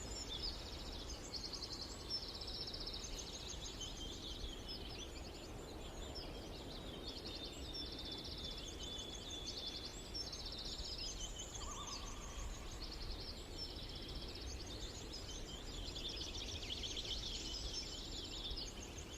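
Sparrows chirping in quick, repeated high-pitched phrases and short trills, one after another, over a steady low background noise.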